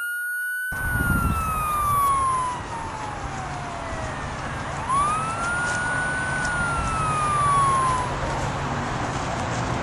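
Ambulance siren wailing: a single tone that falls slowly, then rises and falls again, two slow wails in all. Under it from about a second in there is steady outdoor background noise.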